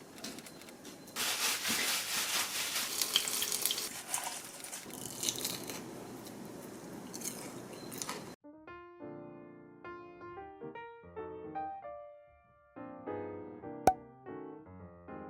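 Starch-coated zucchini pieces sizzling and crackling in shallow frying oil, louder from about a second in, cutting off suddenly after about eight seconds; then soft piano music.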